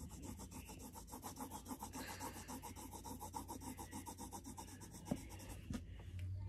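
Faint, quick back-and-forth scribbling of a coloring tool on paper, shading in a drawing in an even rhythm of several strokes a second. It stops about a second before the end, with a couple of light taps.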